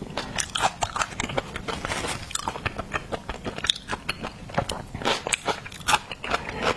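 Close-miked chewing and biting of seafood: a dense, irregular run of wet clicks and crackles.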